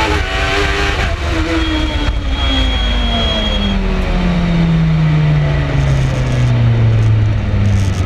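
BRC 05 EVO sports prototype's engine heard from on board: the engine note steps down twice in the first second or so, then the revs fall steadily for several seconds as the car slows. Wind and road noise run underneath.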